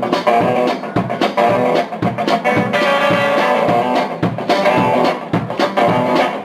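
Rock song in an instrumental passage without vocals: guitar playing over bass and a steady drum-kit beat.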